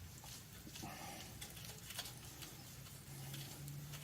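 Quiet workshop room tone: a low steady hum with a few faint clicks and light taps.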